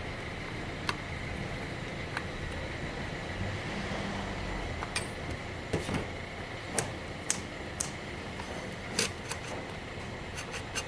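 Scattered light clicks and knocks of chainsaw parts and tools being handled during assembly, over a steady background hiss with a faint high tone; the saw's engine is not running.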